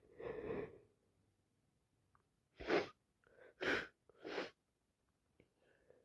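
A woman with a cold sneezing: a breathy sound at the start, then a quick run of about three sharp sneezes under a second apart around the middle, the first the loudest.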